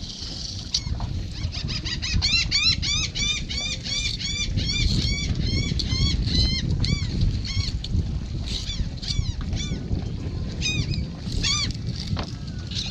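Birds calling in a rapid series of short squealing notes, about four a second, starting about two seconds in, breaking off near seven seconds, then returning in shorter runs near the end, over a steady low rumble.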